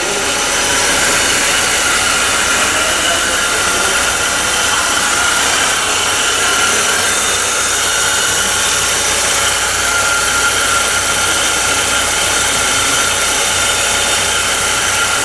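Ford Ka's 1.0 Zetec Rocam four-cylinder engine running steadily at idle, heard up close with an even whirring rush over it. The noise builds over the first second, then holds.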